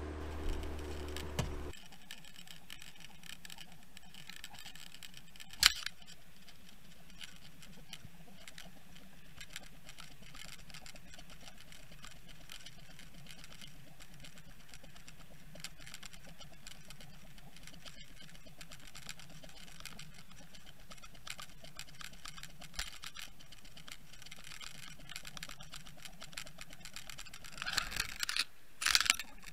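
Muffled underwater sound from a camera in a waterproof housing trailing a trolled lure: steady water noise with a faint low hum, scattered small clicks, a sharp knock about six seconds in, and a cluster of knocks near the end. A low hum is heard for the first second or two, before the sound changes to the underwater track.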